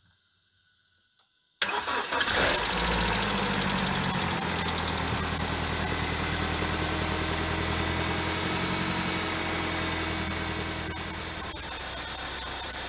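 BMW N42 four-cylinder petrol engine being started about a second and a half in: a short burst of cranking, then it catches and settles into a steady idle. It is the first start after the engine's timing has been reset. The idle drops a little near the end.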